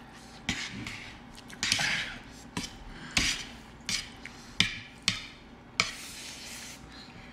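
Close-up eating sounds: noodles slurped in several short pulls, with sharp clicks of chopsticks and forks against plates, the loudest clicks a little past the middle.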